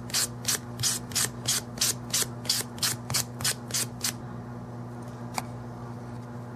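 Nail buffer scraped back and forth over a cured gel overlay on a fingernail, about three strokes a second, stopping about four seconds in. A single light click follows, over a steady low hum.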